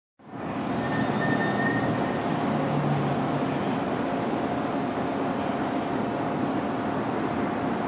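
Sikorsky UH-60M Black Hawk helicopter's main rotor and twin turboshaft engines running steadily as it lifts off and hovers low.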